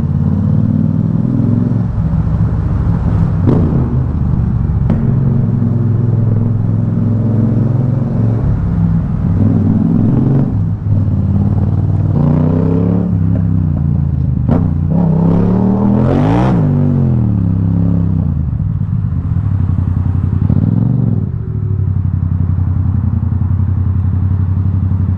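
Yamaha XSR700's parallel-twin engine running through an Akrapovic full-system carbon exhaust, very loud. It holds a steady note, with the revs climbing and falling away about halfway through and a smaller rise and fall near the end.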